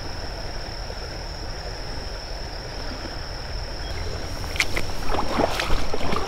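Creek water running over a steady high-pitched whine; from about four and a half seconds in, a few short splashes of water, loudest near the end.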